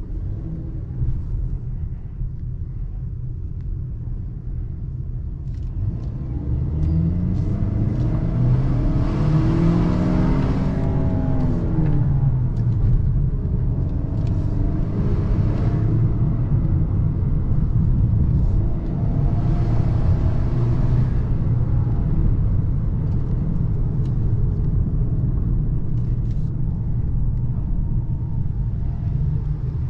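A Ford Maverick's 2.0-litre EcoBoost turbo four-cylinder engine pulls the truck along over a steady low road rumble. About six seconds in the engine note rises under acceleration, then falls back, and it swells briefly again twice later on.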